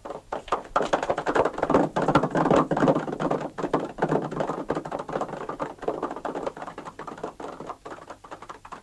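Hoofbeats of several horses galloping on a dirt track: a dense, rapid clatter that builds over the first second or two and fades near the end as the riders move away.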